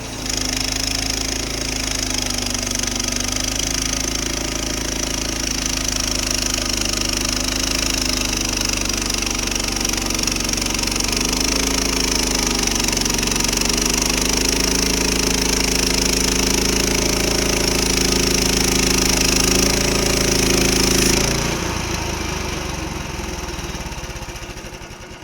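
Frontier OS31 portable bandsaw mill running at full speed while sawing lumber: a steady engine with a high hiss above it. About 21 seconds in the engine drops off and the sound fades away.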